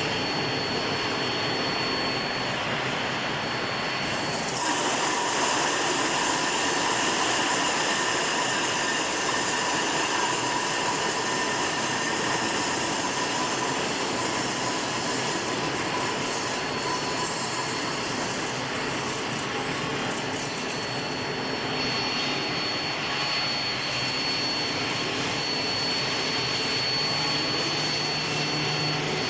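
Induction quenching furnace running: a steady hiss with a thin, high-pitched whine. The whine drops out about four seconds in and comes back about twenty seconds later, while a lower steady tone joins at the break.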